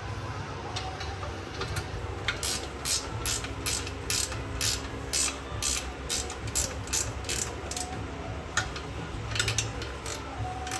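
Hand ratchet wrench clicking in runs of about three clicks a second, as bolts are worked on the car's exhaust, over a steady low shop hum.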